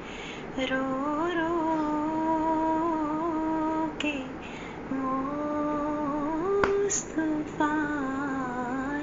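A woman humming a slow wordless melody in long held notes with small turns in pitch, broken into a few phrases. A sharp click about two thirds of the way through.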